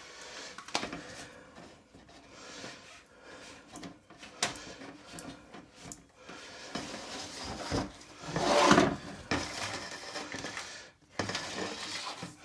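Handling noise from a borescope being worked in a dryer vent duct: intermittent rubbing and scraping with small clicks. The loudest is a scrape of about a second, a little after eight seconds in.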